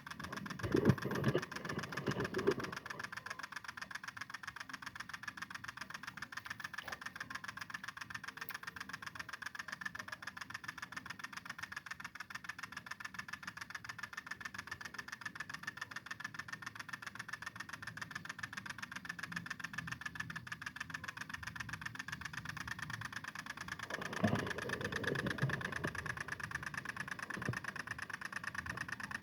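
Small two-stroke engine of a G1000 mini cultivator running steadily with a fast, even beat, with brief louder spells about a second in and about 24 seconds in.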